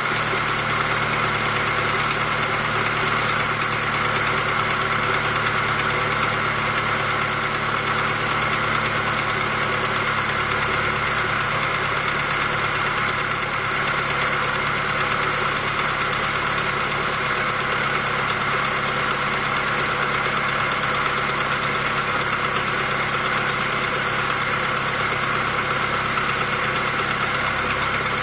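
2005 Jeep Wrangler TJ's 2.4L Powertech inline-four engine idling steadily. The owner suspects piston slap on cylinder #3.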